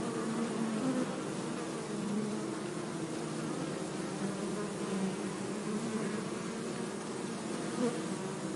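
Bees buzzing in a steady drone, several wingbeat tones wavering and overlapping one another.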